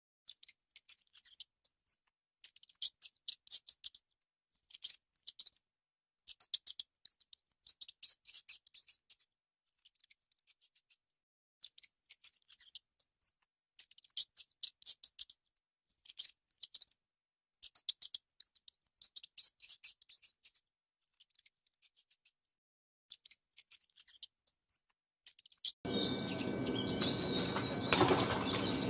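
A pet rat chewing food close up: rapid crisp clicks in short bursts, with brief silences between. Near the end this gives way to birds chirping over a steady outdoor background.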